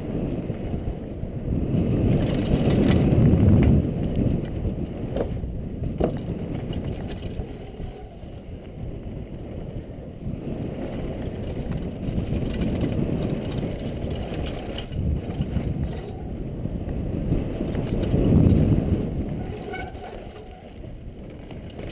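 Downhill mountain bike descending a rocky, dusty trail at speed, heard from the rider's helmet camera: a steady rumble of tyres crunching over loose stones and the bike rattling. It swells louder about two to four seconds in and again around eighteen seconds, with a few sharp knocks around five and six seconds in.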